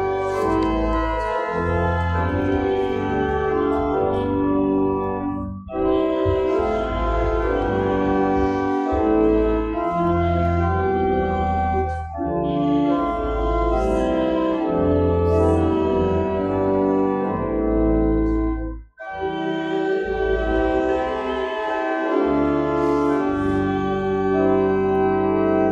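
Church organ playing slow, sustained chords over a deep pedal bass, in phrases broken by short pauses about every six seconds.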